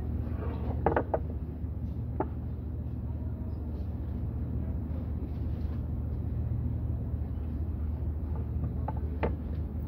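Plastic-wrapped bamboo cutting boards knocking together as they are handled: a couple of quick knocks about a second in, one at about two seconds and one near the end, over a steady low hum.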